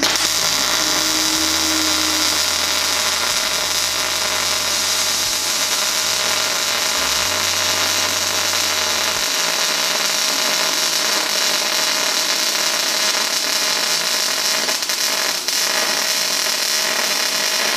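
Welding arc running a continuous bead along the seam of two tacked metal plates: a steady crackling hiss with no break. It is run hot enough to give what the welder calls a halfway decent weld.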